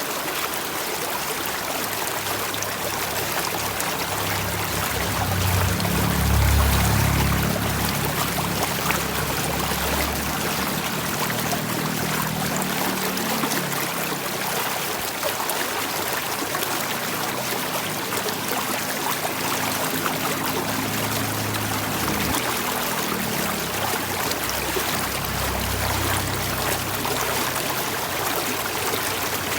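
Water flowing steadily, like a stream running over stones, with a low hum under it that swells about six seconds in and comes and goes.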